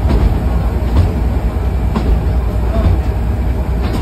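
Wooden passenger carriage of a vintage tourist train running along the track: a steady low rumble from the wheels and running gear, with a light clack about once a second as the wheels cross rail joints.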